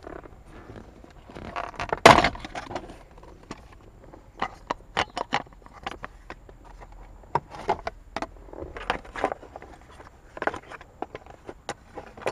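Plastic steering column covers of a Honda Civic being unclipped and handled: a string of scattered clicks and plastic knocks, the loudest about two seconds in.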